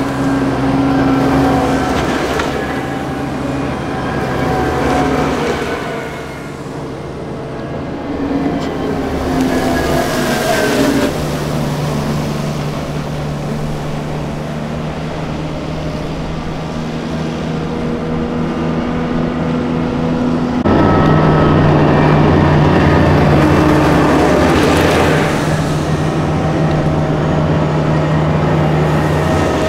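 Diesel engines of Piranha 5 eight-wheeled armoured personnel carriers running as they drive past one after another, with tyre noise on the road. The engine note changes abruptly twice, about 11 and 21 seconds in, and is loudest after the second change.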